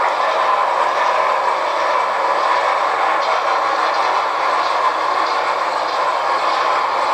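HO-scale model train running on the layout: a steady, even rolling noise of wheels on track.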